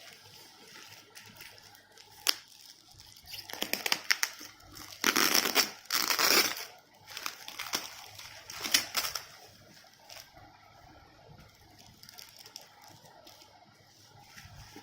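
Packaging being torn open and crinkled: a sharp click about two seconds in, then several noisy bursts of tearing and crinkling through the middle, with one more near the end of the activity and quieter rustling around them.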